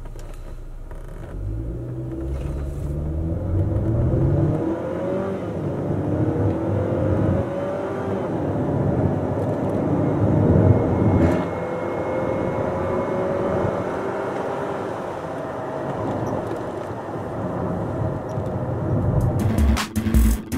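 Xtrim VX's 2.0-litre turbocharged four-cylinder engine accelerating hard from a standstill. The pitch climbs through each gear and drops at each upshift of the eight-speed automatic. Electronic music comes in near the end.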